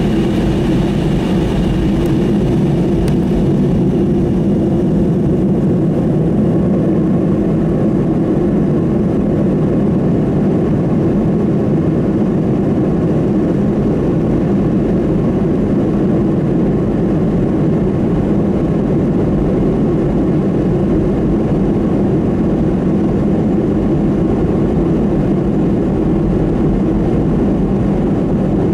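Jet airliner cabin noise during the takeoff roll: the engines running at takeoff power as a steady, loud, deep drone heard from inside the cabin.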